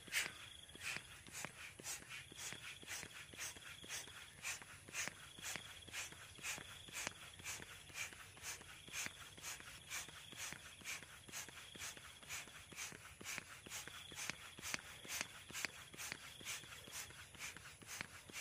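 Plastic hand balloon pump being worked steadily, each plunger stroke pushing a short puff of air into a latex balloon, about two puffs a second.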